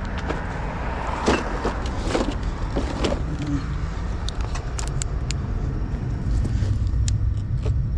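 Metal clinks and clanks of a car jack and tools being handled, many short sharp clicks with a cluster of louder knocks between one and three seconds in, over a steady low vehicle rumble.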